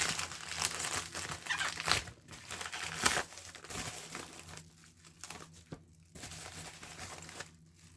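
Packaging crinkling and rustling as an item is unwrapped by hand. It is busiest in the first few seconds, then quieter and more scattered.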